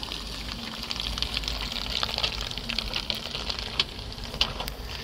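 Off-road vehicle climbing a muddy slope at a distance, its engine a faint wavering drone while the wheels slip a little at speed but keep gripping, under a steady hiss with scattered small clicks.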